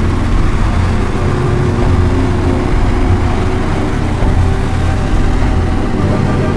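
Steady, loud low rumble of heavy engines, with a few faint held tones above it.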